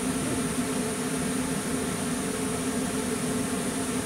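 Steady hum and fan noise from a MIG welding machine that is switched on and idling, not welding.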